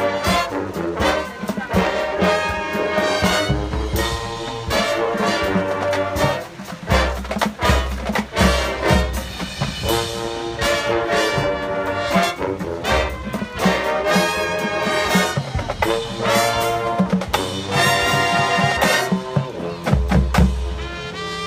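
Drum and bugle corps playing a field show: the brass horn line plays full chords and moving lines over mallet percussion and drums, with heavy low brass and bass notes at several points.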